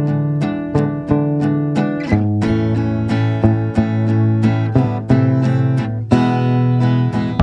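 Background music: plucked acoustic guitar picking notes in a steady rhythm over a bass line.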